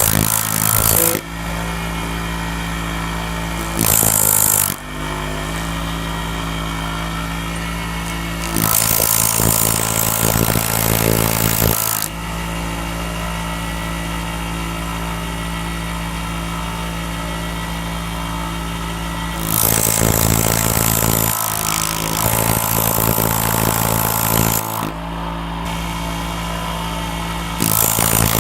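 Air compressor pump running steadily with a motor hum, while air hisses out of a disconnected line in several bursts of one to five seconds. The pump delivers only weak airflow and the tank is not building pressure, which the owner suspects is a busted diaphragm.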